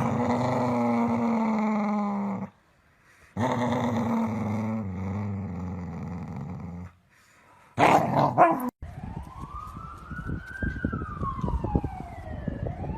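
A dog making two long, drawn-out vocal sounds, each held at a fairly steady pitch. Near the end comes a short loud burst, then a siren-like wail that rises and falls twice.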